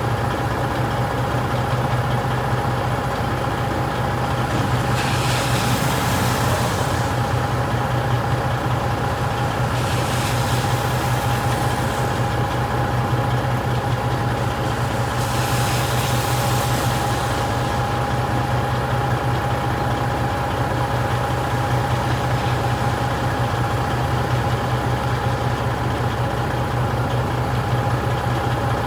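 Truck engine idling steadily, with three short hisses a few seconds apart about a third of the way in.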